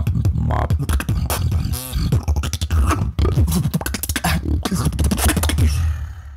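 Beatboxing: a rapid run of sharp mouth-percussion hits over a deep, steady bass line, fading out near the end.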